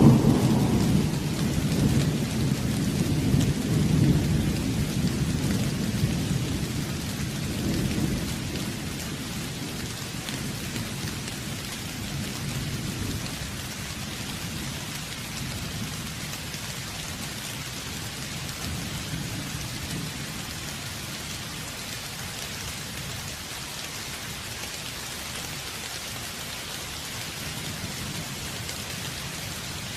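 Steady rain falling, with a low roll of thunder at the start that rumbles on and slowly dies away over the first ten seconds or so, leaving the rain alone.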